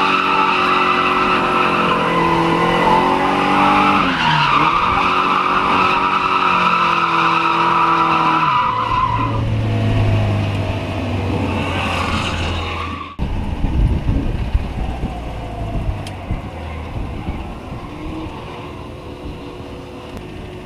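Polonez drift car with a Rover 1.6 engine, heard from inside the cabin, held at high revs through a drift with tyres squealing, with a short dip in revs about four seconds in. About nine seconds in the revs drop. After an abrupt break about thirteen seconds in, the engine runs at low revs with some rumbling knocks, getting quieter toward the end.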